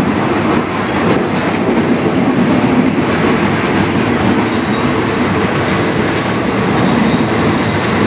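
Thai railway passenger coaches rolling slowly past close by as the train is reversed into the platform. Their wheels make a steady rumble on the rails.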